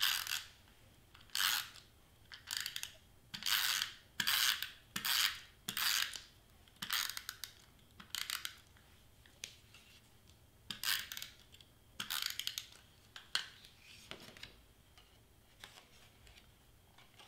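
Clear adhesive tape being pulled from a handheld dispenser and pressed onto cardstock: a run of short rasping bursts, about one a second, thinning out in the last few seconds as the paper is handled.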